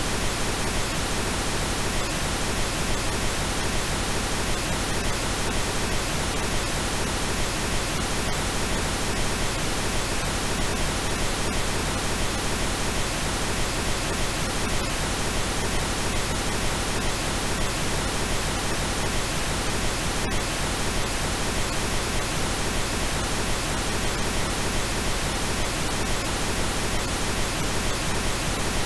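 Steady synthetic pink noise: an even hiss spread across all pitches, with no change in level or character.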